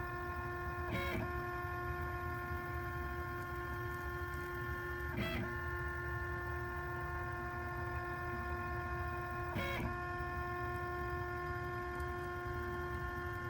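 OX CNC machine running as it drives a pen attachment through hatching strokes: a steady whine of several tones, with a brief surge of noise about every four seconds.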